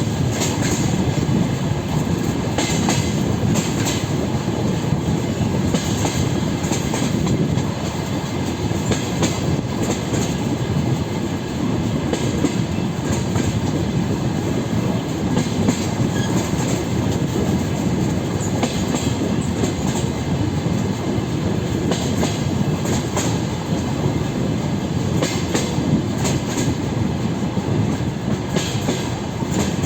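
A DR1A diesel railcar train running along the line: a steady rumble of the running gear, and the wheels clicking over rail joints in quick pairs every second or two.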